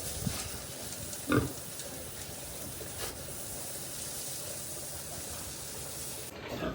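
Pigs grunting, with one short, loud grunt about a second and a half in and a smaller one near the end, over a steady hiss.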